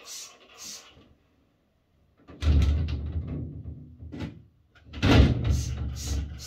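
A few short scrubbing strokes on a glass shower enclosure, then two loud, low rumbling slides of the shower cabin's sliding glass door on its track, one about two and a half seconds in and one about five seconds in.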